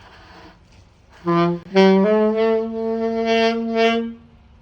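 A new saxophone being tried out, playing three notes that step up in pitch, starting about a second in: two short notes, then one held for about two seconds.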